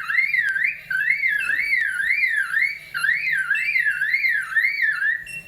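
Superb lyrebird mimicking a car alarm: a wailing call that sweeps up and down in pitch about twice a second, stopping just before the end.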